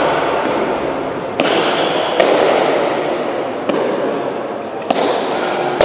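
A Basque pelota rally: about six sharp cracks of the ball being struck and hitting the front wall, at uneven intervals of about a second, each ringing on in the echo of the fronton hall. A steady murmur runs underneath.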